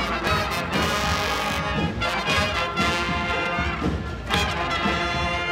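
Brass street band playing, the horns holding long chords broken by short pauses.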